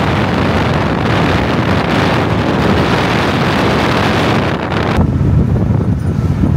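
Heavy wind rush on a microphone held outside a moving car's window, over the rumble of the car at road speed. About five seconds in it cuts to a lower, steadier road-and-engine rumble with much less wind hiss.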